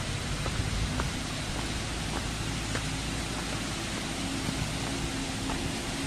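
Steady rushing of falling water from a nearby waterfall, with a few faint clicks of footsteps on dry leaf litter.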